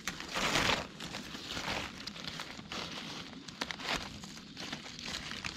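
Dry leaf litter and brush rustling and crackling in irregular bursts, loudest about half a second in, with small twig snaps scattered through.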